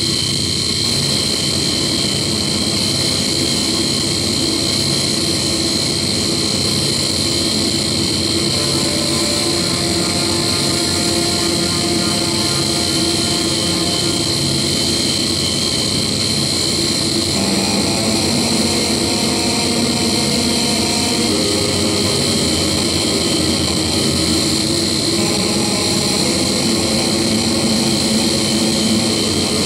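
Experimental noise-ambient music: a dense, steady wall of electronic noise with several sustained tones layered over it. About seventeen seconds in, new lower tones come in and the texture thickens.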